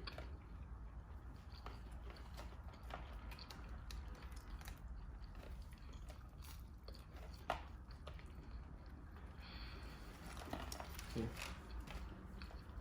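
Faint chewing and biting of chicken nuggets, with scattered small mouth clicks and one louder click about seven and a half seconds in.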